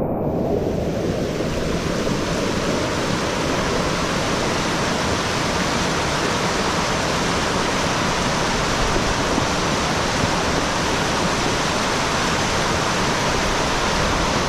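Floodwater rushing and churning in a loud, steady roar with no break.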